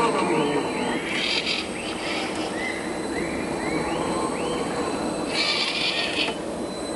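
A bird calls a quick series of short rising-and-falling chirps, a few a second. Under it is the faint whir of a scale RC crawler's electric motor and gears as the truck creeps over rock, with two brief bursts of hiss about a second in and near the end.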